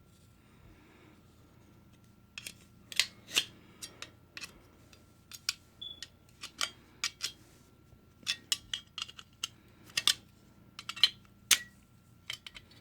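Irregular sharp metallic clicks and taps, starting about two and a half seconds in, as jammed staples are worked loose from the magazine of a Stanley staple gun.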